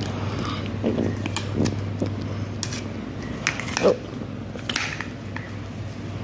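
A kitten pouncing on, clawing and biting a red toy on a fabric mat: irregular scuffs, scratches and soft knocks, over a steady low hum.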